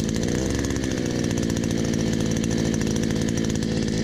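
Chinese no-name 52cc 3.5 hp two-stroke outboard motor running steadily just after being pull-started, with a slight waver in speed about half a second in. It is really loud, exhausting through a small bare pipe with no muffling.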